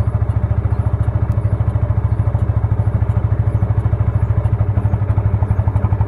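Motorcycle engine running steadily at low speed with a quick, even exhaust beat, in first gear so the rear wheel and chain turn.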